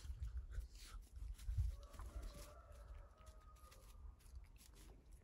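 A rooster crowing once, a single long call starting about two seconds in and lasting about two seconds.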